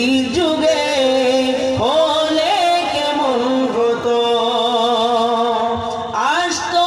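A man singing a Bengali Islamic naat into a microphone: long held notes that waver and slide from one pitch to the next.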